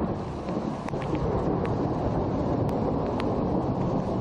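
Thunder rumbling steadily with rain falling, a few sharp ticks of drops scattered through it.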